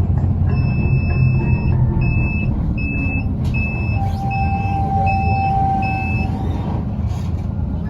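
Low, steady rumble of a bus interior with a series of high electronic beeps: one long beep, then about six short ones at a steady pace. This is a bus warning buzzer, such as a door chime.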